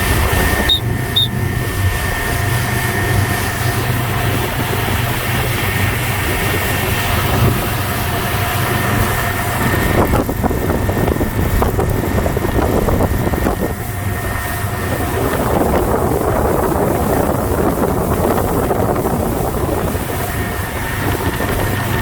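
Motorboat engine running steadily, with rushing wind and water noise over it.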